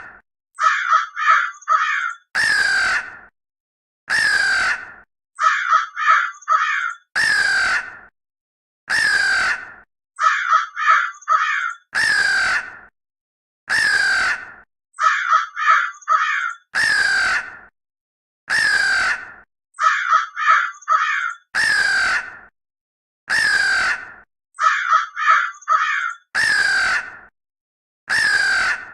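Crow cawing in a repeating cycle: a quick run of three short, harsh caws, then two single longer caws, the pattern coming round about every five seconds.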